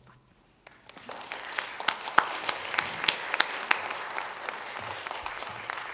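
Audience applauding, starting about a second in after a brief quiet, many sharp hand claps over a steady clapping haze.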